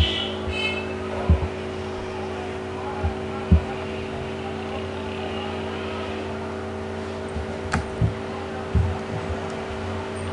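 Steady machine hum with several held tones, typical of a desktop computer's fan picked up by the recording microphone. Soft low thumps come every second or two, and there is one sharp click about eight seconds in.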